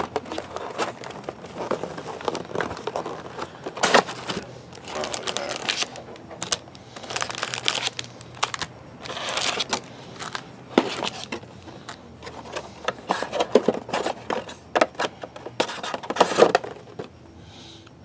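Foil trading-card pack wrappers crinkling and tearing as the packs are opened, with irregular rustling and handling noises.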